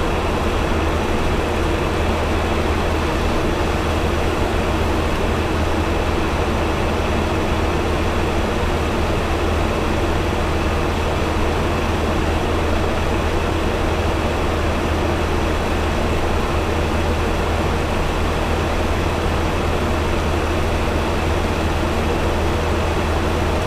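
Steady cockpit noise of a Boeing 737-900 in its climb after takeoff: airflow and engine noise over a deep, even hum.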